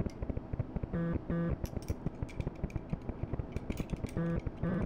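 Background music: a short two-note figure repeating about every three seconds over a steady low beat.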